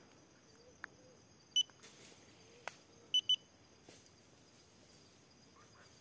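Short, high, even-pitched beeps: one, then a quick pair about a second and a half later, over faint forest background with soft, low, wavering calls and a few light clicks.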